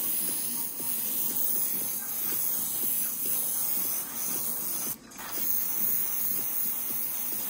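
Iwata Neo airbrush with a 0.3 mm needle spraying paint: a steady high hiss of air and paint, which cuts out briefly about five seconds in and then resumes.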